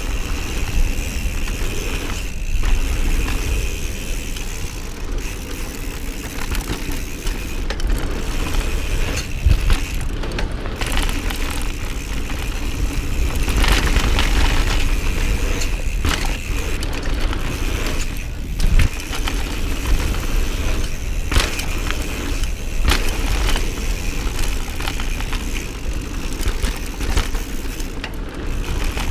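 Giant Trance mountain bike descending a dirt trail at speed: tyres rolling over the ground, chain and frame rattling, with frequent sharp knocks from bumps and landings. Wind buffets the action camera's microphone with a constant low rumble.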